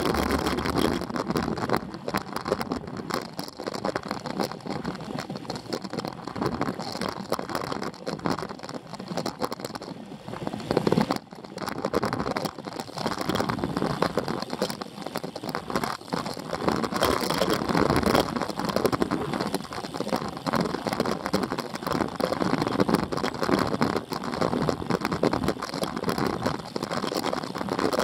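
Wind rushing over the microphone of a camera riding on a road bike during a fast descent, mixed with tyre noise on rough asphalt and small knocks and rattles from bumps in the road. The noise rises and falls with gusts and dips briefly a little past the middle.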